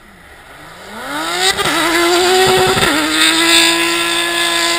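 Ice-racing car's engine revving up as it approaches, its pitch rising with two brief dips about a second and a half in and near three seconds, then held high and steady as the car slides sideways past on the snow. Loud and close.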